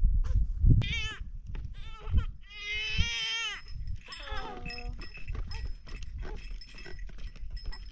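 Goats and sheep bleating, a few quavering calls, the longest about three seconds in; light clicks and knocks follow in the second half.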